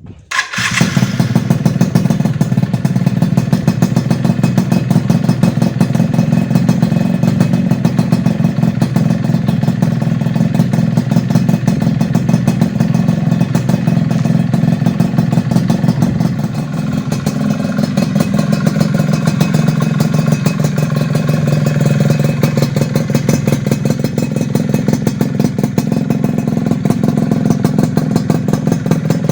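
Yamaha F1Z/F1ZR two-stroke single-cylinder motorcycle engine idling through an HTX aftermarket racing exhaust, with a fast, even popping beat and small swells in level. The sound begins abruptly about half a second in.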